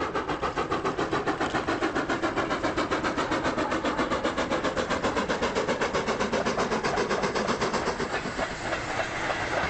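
Preserved steam locomotive working hard, its exhaust beating in a rapid, even rhythm of several beats a second; near the end the beats blur into a steadier rush of noise.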